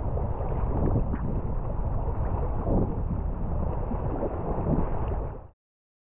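Wind buffeting the microphone of a camera on a packraft, with water splashing around the boat on a choppy river. The sound cuts off suddenly about five and a half seconds in.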